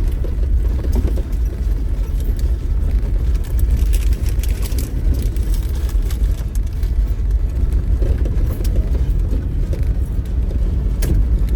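Off-road vehicle with a diesel engine driving slowly over a rough dirt trail, heard from inside: a steady low rumble with scattered knocks and rattles from the bumpy ground.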